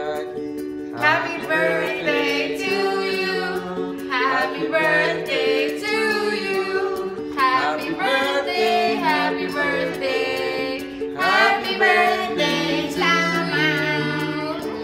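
A song: singing voices over steady instrumental accompaniment, the sung lines wavering while the backing notes change every half second or so.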